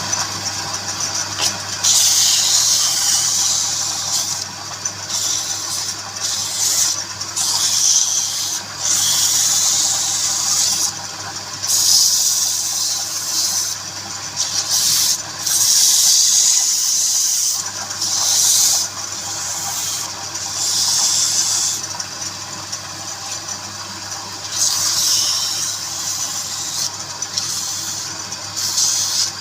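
Wood lathe motor humming steadily while a tool is worked against the spinning wood in repeated hissing passes, each about one to two seconds long with short breaks between.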